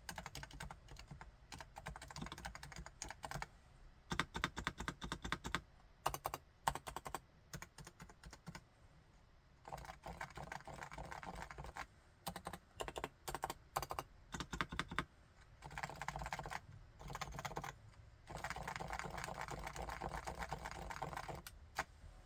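Typing on a Topre Realforce R4 keyboard with electrostatic capacitive (Topre) switches: fast runs of muted keystrokes in bursts of a few seconds, with a few sharper single strokes and brief pauses between runs.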